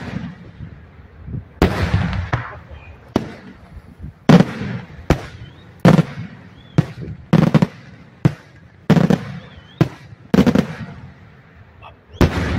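Daytime fireworks: aerial shells bursting in a steady run of loud bangs, about one a second, each with a short rumbling echo.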